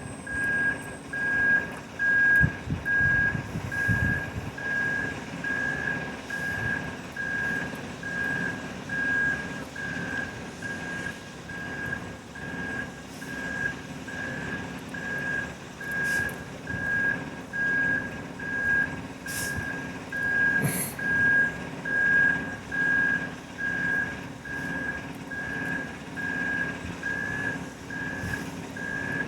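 A truck's reversing alarm beeping steadily, about one beep a second, over a running diesel engine.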